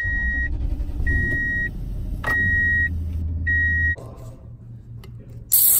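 A pickup truck's warning chime beeping steadily, a high beep about every 1.2 seconds, four times, over a low rumble. About four seconds in both stop, and near the end an aluminium drink can's pull tab cracks open with a short sharp hiss.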